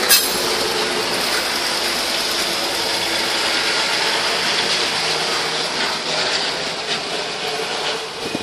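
Converted KRD railcar set passing slowly at close range: a steady rattle and clank of wheels, bogies and couplings on the track. There is a sharp click right at the start.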